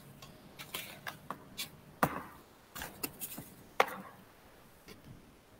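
Light, irregular taps and clicks, about a dozen, from a drawing tablet and its stylus being handled. The two sharpest come about two seconds in and about two-thirds of the way through.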